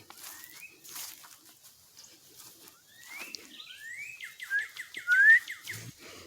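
A person trying to whistle: a string of short, rising whistle notes that grow stronger and come faster toward the end, loudest about five seconds in, over light footsteps.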